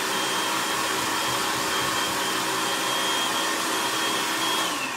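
Electric food processor motor running steadily with a whine, chopping zucchini, yellow squash and onion, then switched off near the end, its whine falling as the blade spins down.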